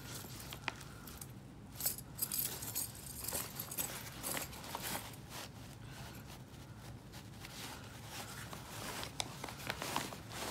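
Metal chains and spikes of a pair of chain traction cleats (crampons) clinking and jingling in scattered short clicks as they are handled and packed away, with soft rustling of pack fabric.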